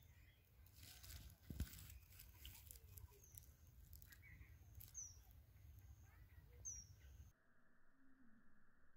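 Near silence: faint outdoor background with a low rumble, a few soft clicks about one and a half seconds in, and two or three short, high falling bird chirps in the second half.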